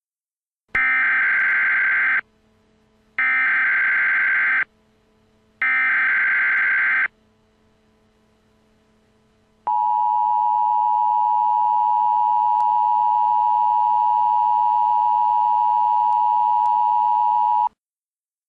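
Emergency Alert System SAME header: three bursts of digital data tones, each about a second and a half long and about a second apart. After a pause, the EAS two-tone attention signal sounds steadily for about eight seconds, announcing the alert message to come.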